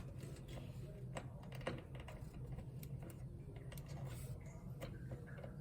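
Faint, scattered small plastic clicks and taps of tiny front-panel connector plugs and their wires being handled and pushed onto motherboard header pins, over a low steady hum.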